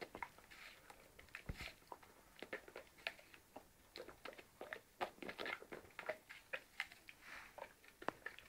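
Shar Pei dog eating a piece of apple held in a hand: many small, irregular crunches and mouth clicks, faint.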